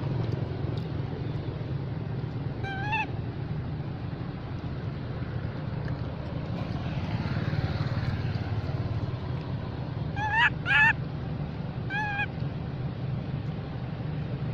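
Baby monkey crying in short, high, upward-sliding squeals: one about three seconds in, then three close together near the end, the middle two the loudest. A steady low hum runs underneath.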